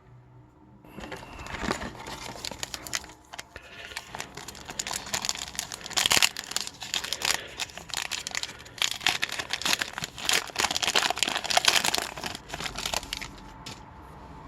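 A hockey card pack's wrapper being torn open and crinkled, a long run of dense crackling with sharp louder snaps.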